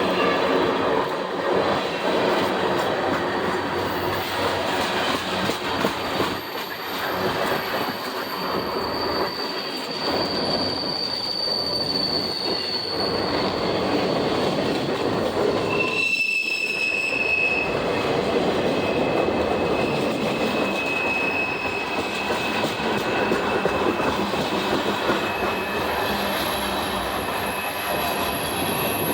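Freight cars of a CSX train rolling past close by: a steady rumble of steel wheels on rail, with thin, high wheel-squeal tones that come and go.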